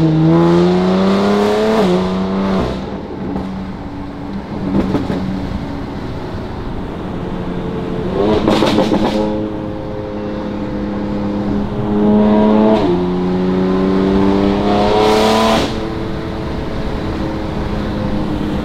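BMW X3 M Competition's twin-turbo inline-six running through a valved cat-back exhaust with high-flow catted downpipes, accelerating hard: the note climbs in pitch and drops sharply at each upshift, about three times, with two brief louder bursts of rasp partway through and near the end.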